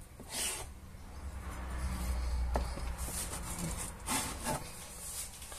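Large kitchen knife cutting raw sausages into short pieces on a plastic chopping board: the blade rubs through the casings and knocks on the board several times.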